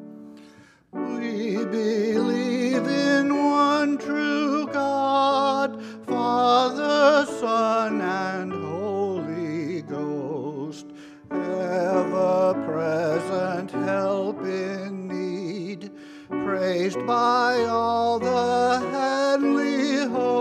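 A man singing a hymn solo with vibrato, accompanied by piano. The voice comes in about a second in, with short breaks between phrases.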